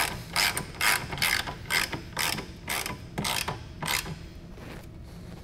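Socket ratchet clicking in repeated quick strokes, about two a second, as an 18 mm bolt is run down tight to fully crush its lock washer; the strokes stop about four seconds in.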